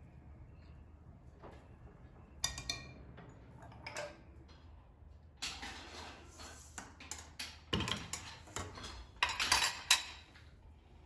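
Kitchen dishes and utensils clinking and knocking as they are handled: a few scattered clinks at first, then busier handling in the second half, loudest near the end.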